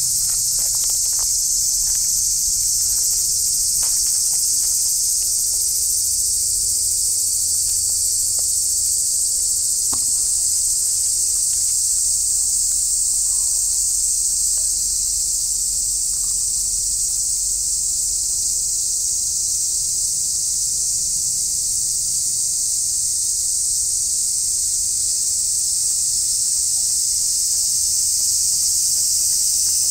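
A chorus of cicadas shrilling steadily in summer heat, a dense, even, high-pitched drone that never pauses, with a few faint rustles of leaves in the first few seconds.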